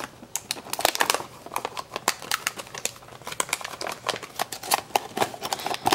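Clear plastic blister packaging crinkling and clicking as it is handled and pressed back into place, a quick irregular run of small clicks and crackles.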